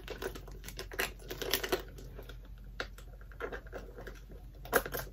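Irregular light clicks and taps of a clear plastic chain satchel bag's metal hooks, twist lock and chain being handled as the strap is hooked on. The sharpest click comes near the end.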